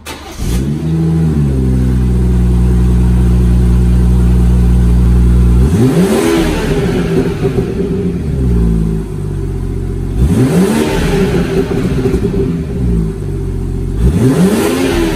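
BMW 440i's B58 turbocharged 3.0-litre inline-six exhaust: the engine starts with a short flare in revs, settles to a steady idle, then is revved three times, each rev climbing sharply and falling back to idle.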